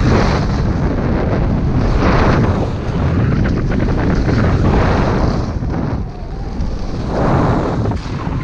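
Wind rushing over the microphone during a fast downhill ski run, with skis hissing and scraping on groomed snow, swelling every couple of seconds with the turns.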